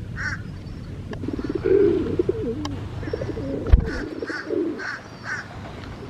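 Pigeons cooing repeatedly, with a smaller bird giving a series of short chirps in between. A single dull thump a little under four seconds in.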